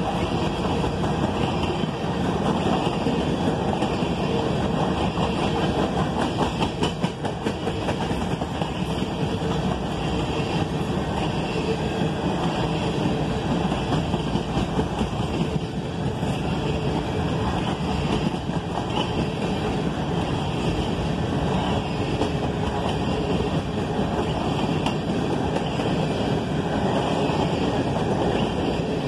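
Covered hopper cars of a freight grain train rolling past, with the steady noise of steel wheels on rail. There is a spell of sharp wheel clicks about seven seconds in.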